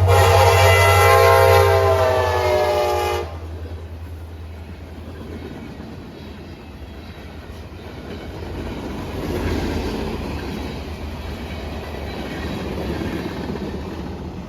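CSX freight locomotive's multi-chime air horn sounding a loud chord over the deep engine hum, cutting off suddenly about three seconds in. The engine hum then fades and the train's cars roll by with wheels clacking on the rails.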